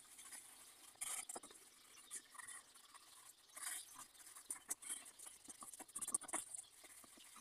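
Leather knife sheath being handled and pressed by hand: faint, irregular scraping, rubbing and light taps.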